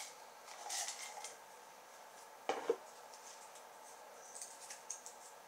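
Folded paper slips rustling in a plastic bowl as one is picked out, with a short sharp double knock about halfway through. Faint paper crinkling near the end as the slip is unfolded.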